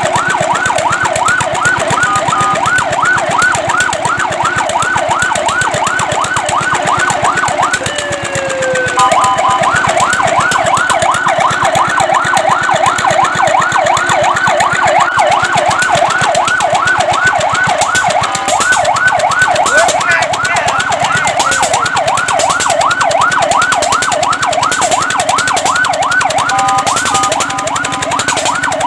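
Fire truck siren in a fast yelp, its pitch sweeping up and down several times a second, with a brief change of tone about eight seconds in.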